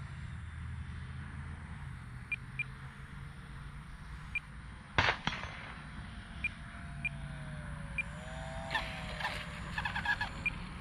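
Faint whine of a micro RC airplane's small electric motor and propeller, falling in pitch and then briefly rising as it comes in to land, over a low steady rumble. A single sharp click comes about five seconds in.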